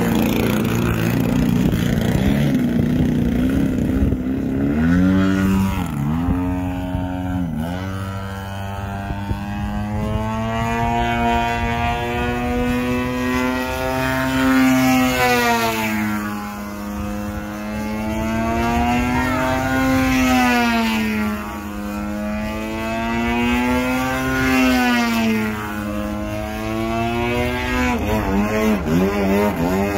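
Engine of a radio-controlled aerobatic propeller plane running in flight, its pitch rising and falling again and again as the plane loops and turns.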